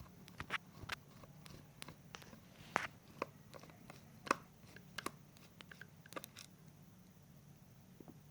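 Irregular sharp clicks and light taps of parts and tools being handled while the device is taken apart, the loudest about four seconds in, thinning out near the end, over a faint steady hum.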